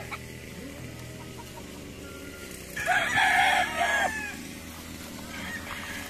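A gamecock crows once, loud and a little over a second long, about three seconds in. Another rooster gives a fainter call near the end.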